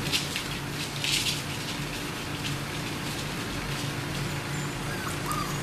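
Labrador puppies scuffling in their pen: rustling, scratching and small clicks over a steady low hum, with a faint short squeak near the end.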